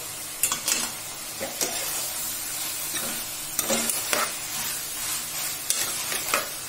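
A steel spoon stirring marinated chicken with onions and tomatoes in a metal pan, scraping and knocking against the pan at irregular moments. Underneath, a steady sizzle of the masala frying on the heat.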